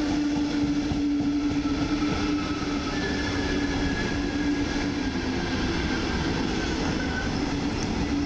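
Koleje Mazowieckie double-decker push-pull train pushed by a Traxx EU47 electric locomotive pulling in past the platform: a steady rumble of coaches rolling on the rails, with a hum that drops slightly in pitch as it slows and a faint higher whine in the middle.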